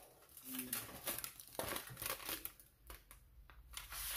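Sheet of aluminium hair foil crinkling as it is handled and pressed against a section of hair, in short irregular crackles.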